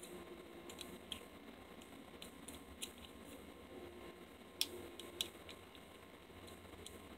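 Faint clicking and handling of a paracord survival bracelet's plastic side-release buckle as it is pulled apart and snapped back together. The two sharpest clicks come about four and a half and five seconds in.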